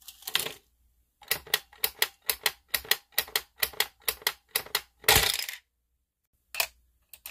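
Plastic granny-figure toy's mechanism clicking rapidly and evenly, about three clicks a second, then a louder rattling clatter about five seconds in as the figure springs awake, eyes opening and arms lifting.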